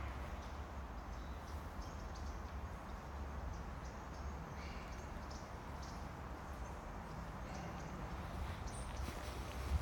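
Faint outdoor ambience: a low steady rumble with scattered soft clicks and crackles.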